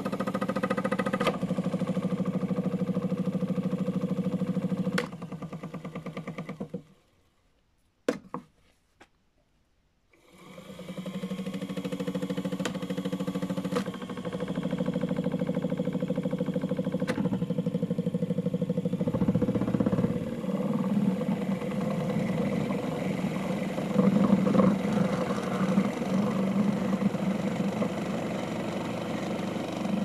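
Small electric motor of a modified Miele W1 toy washing machine running with a steady hum as it turns the drum. It stops about seven seconds in, two clicks follow, and it starts up again and builds back to a steady run about three seconds later, turning rougher and more uneven in the second half.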